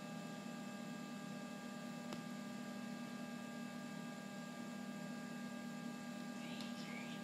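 Steady electrical hum with a few constant whining tones above it, and a faint single click about two seconds in.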